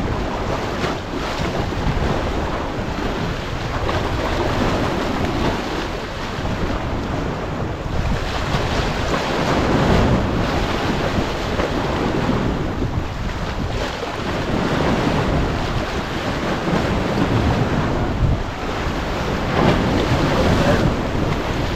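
Sea waves washing in and breaking against rocks, rising and falling in surges every few seconds, with strong wind buffeting the microphone.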